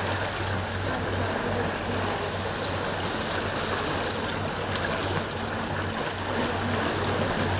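Sea washing against a rocky shoreline, a steady wash of noise, with a low steady hum underneath and a few faint crackles of a plastic rubbish bag being handled.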